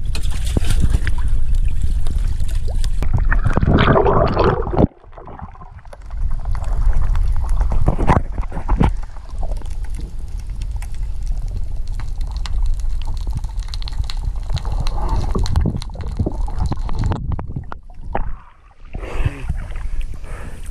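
Water sloshing and gurgling around a waterproof camera as a snorkeller takes it from the waterline down under a sailboat's hull, with muffled underwater noise. The noise drops out suddenly about five seconds in and again shortly before the end, then splashing picks up as he comes back up to the surface.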